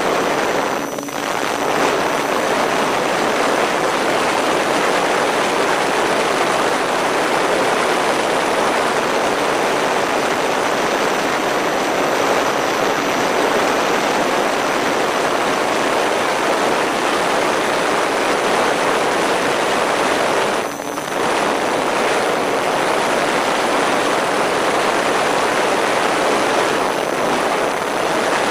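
MFD Crosswind Nimbus Pro RC plane in flight, its electric motors and propellers running under a steady rush of wind over the camera's microphone, with a faint high whine. The noise dips briefly twice, about a second in and again about twenty seconds in.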